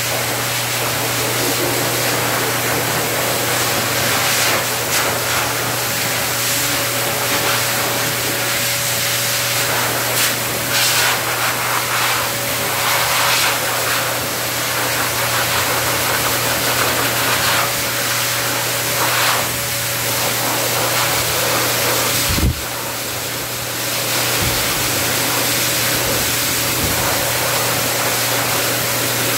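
Pet grooming hose dryer blowing steadily onto a dog's coat: a loud rush of air over a constant motor hum. Near the three-quarter mark there is a short knock and the level drops slightly for about a second before settling again.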